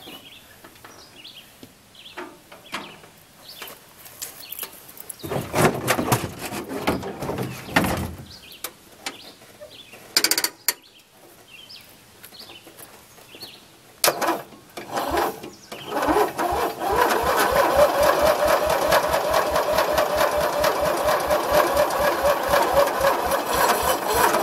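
Lawn-tractor engine being turned over by its electric starter, chugging at about five compressions a second with the starter's whine over it, without catching. A shorter burst comes about five seconds in, and the long crank starts about two-thirds of the way through.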